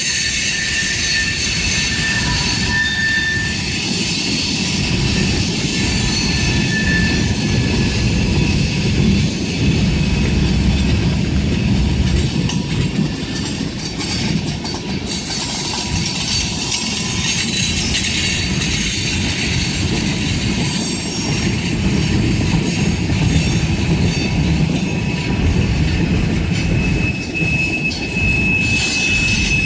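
Freight cars of a long CSX freight train rolling past, a continuous heavy rumble of wheels on rail. Thin high-pitched wheel squeal comes and goes over it, early on and again near the end.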